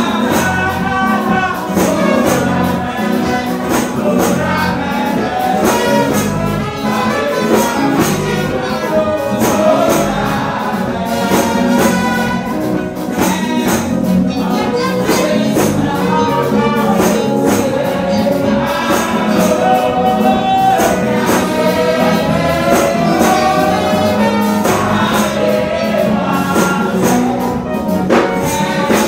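Gospel song sung live into microphones and played through a church PA, the voices over band accompaniment with a steady beat.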